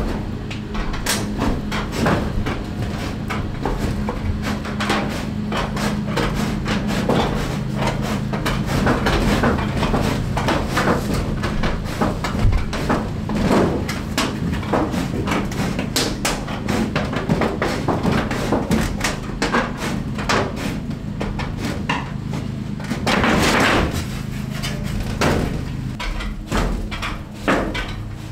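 Hand tin snips cutting through ribbed metal siding, a long irregular run of sharp crunching clicks as the blades bite through the sheet. A steady low hum runs underneath and stops near the end.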